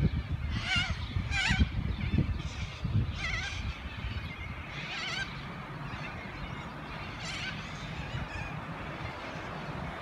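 A flock of cockatoos and parrots giving harsh, wavering calls, several loud ones in the first few seconds, then scattered fainter ones, over a steady low rumble.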